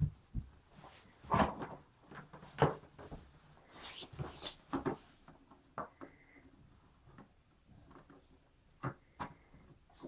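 Irregular knocks, taps and clatter of hard plastic as a baby pats and handles a canister vacuum cleaner that is not running.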